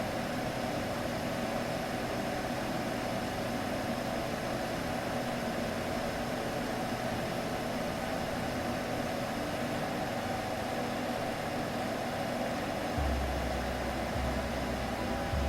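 Steady soothing hum blended with a white-noise-like hiss, a sleep sound for a baby. From about 13 seconds in, a low pulse joins, repeating a little more than once a second.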